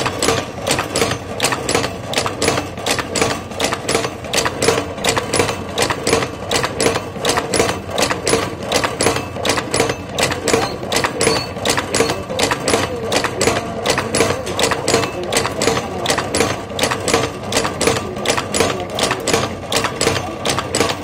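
Three-slide wire-forming machine running, its slides bending and cutting wire into small silver rings with a rapid, even mechanical clacking of several strokes a second over a steady hum.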